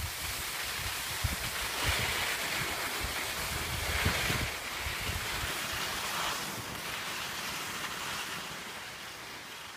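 Skis sliding over packed snow, a steady hiss that swells and eases in waves, with wind rushing over the microphone while skiing downhill. It fades gradually near the end.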